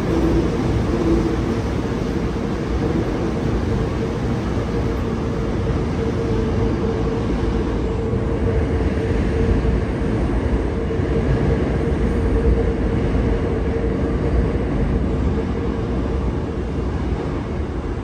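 Hankyu electric train running: a steady low rumble with a steady hum, easing slightly near the end.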